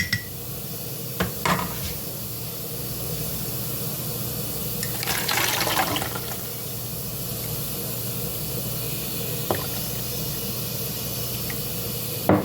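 Hot herbal tea being poured through a strainer into a cup, a steady trickle that grows louder for about a second around five seconds in, with a few light clicks of the strainer or cup.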